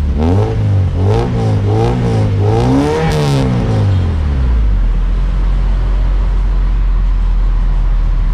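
Honda Civic VTi's engine breathing through a newly fitted Blanche Racing chambered muffler and headers, revved in a few quick blips and then a higher rev about three seconds in. It then drops back to a steady idle.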